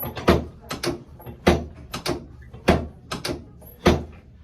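Chiropractic drop table's drop section clunking down again and again during a drop adjustment of the sacrum: four loud knocks about a second and a quarter apart, with lighter clicks in between.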